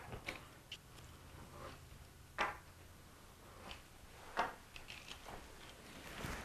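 Faint food-prep handling: scattered light clicks and soft taps as a pizza-cutter wheel cuts crescent-roll dough into strips and the dough is handled, with two slightly louder ticks, about two seconds apart, over a faint low hum.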